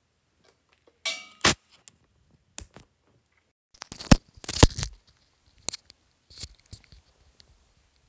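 Handling noise from wired earphones being untangled and put in: scattered clicks, knocks and rustling. The loudest knocks come in a cluster about four to five seconds in.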